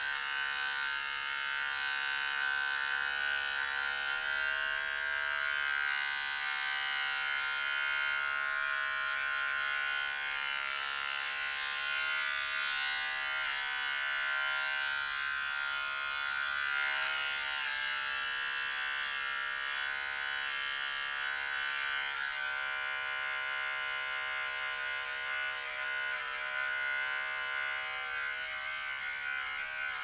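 Electric hair trimmer buzzing steadily while trimming a beard, its hum shifting slightly in pitch now and then.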